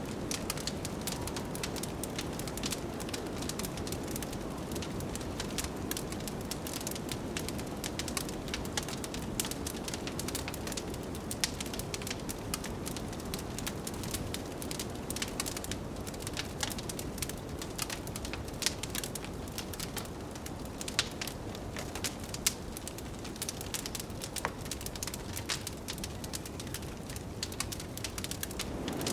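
Wood fire crackling with many small, sharp pops, over a steady low rush of blizzard wind.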